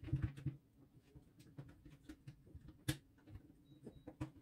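Scattered light clicks and taps of the Parkside PSTK 800 D3 jigsaw's parts being handled and fitted back together during reassembly, with one sharper click about three seconds in.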